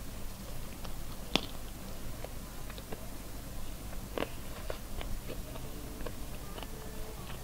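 Close-up chewing and mouth sounds of a person eating curry rice by hand, with scattered small clicks and smacks; one sharper click about a second and a half in.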